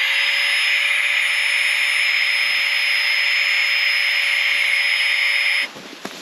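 Small battery-powered mini air pump on a sleeping mat's valve, running steadily with a high whine over the rush of air as it inflates the mat. It stops suddenly near the end.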